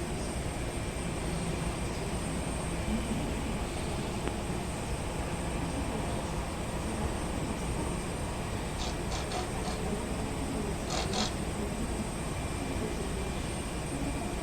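Steady rumble of jet aircraft engines across the airfield, with a few short high chirps about two thirds of the way through.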